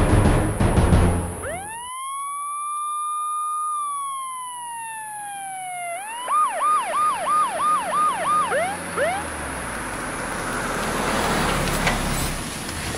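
Police siren: one wail that rises, holds, then slowly falls, followed by a quick run of about seven whoops and a few trailing falling ones. Near the end, the rising rush of a car driving close past.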